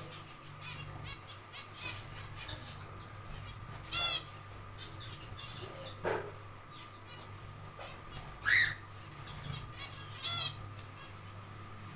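Zebra finches calling: a scatter of soft short chirps, with three louder nasal calls about four seconds in, about eight and a half seconds in, and just past ten seconds, the middle one the loudest.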